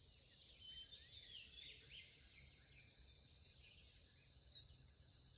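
Near silence: faint outdoor background with a few soft bird chirps in the first couple of seconds over a steady high insect-like hiss.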